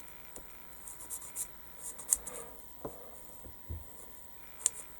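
Light handling of small plastic model-kit parts and hobby tools on a workbench: scattered soft taps and rustles, with a sharp click about two seconds in and another near the end.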